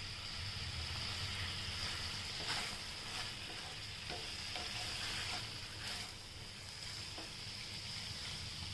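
Stuffed squid frying in masala in a non-stick pan: a steady sizzle. A wooden spatula scrapes and stirs through it several times.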